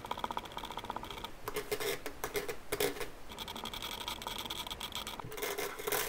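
Old typewriter ribbon being stripped off a metal Olivetti ribbon spool spinning on a pointed hand tool: a fast, continuous run of fine ticking and scratching as the ribbon unreels.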